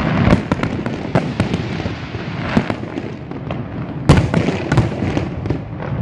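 Fireworks display: a rapid, irregular string of bangs and crackles over a continuous rumble, with the loudest bang about four seconds in.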